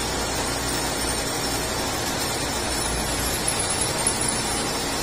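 Milling machine running steadily: an even hiss over a low hum, with a couple of light ticks about three and a half and four seconds in.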